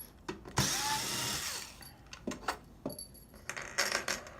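Power screwdriver with a Torx bit spinning a screw out of an Xbox One S case in one run of about a second, followed by several small clicks and knocks of the screws and tool being handled.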